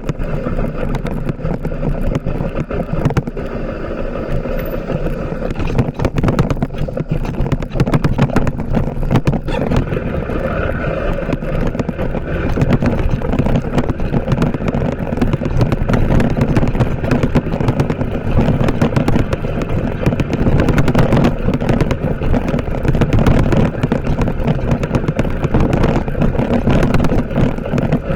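A TVS Apache RTR 160 4V motorcycle's single-cylinder engine running while riding, with a dense crackling, buffeting noise over it throughout.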